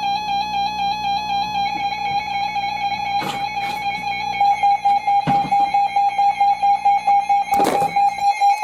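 Emergency Alert System attention signal: a steady electronic alert tone held without a break, with a few short crackles over it.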